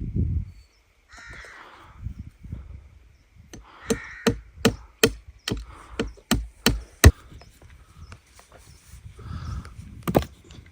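A quick run of about ten sharp chopping strikes, roughly three a second, then a single strike near the end. Short harsh calls come before, during and after the strikes.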